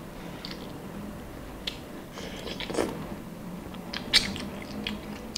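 Two people slurping instant noodles and chewing, with short slurps and wet mouth clicks scattered through; the sharpest slurp comes about four seconds in.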